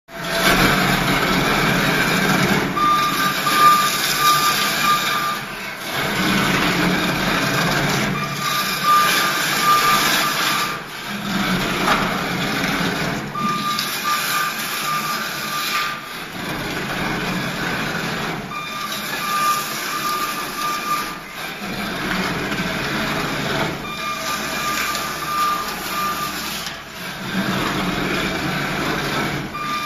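Ride-on floor stripper running, its blade scraping and cracking up a bonded decorative gravel floor from concrete. A pulsing beeper sounds for about two and a half seconds roughly every five seconds.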